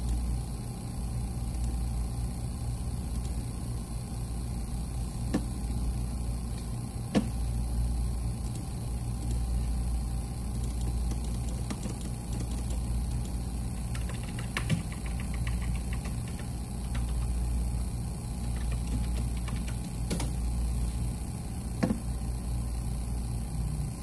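Steady low hum with about five brief, sharp clicks scattered through it.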